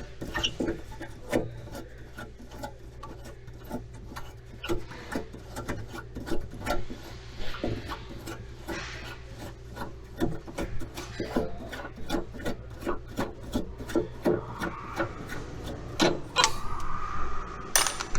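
Trunk floor covers and trim pieces being pulled out and handled: irregular clicks, knocks and scraping.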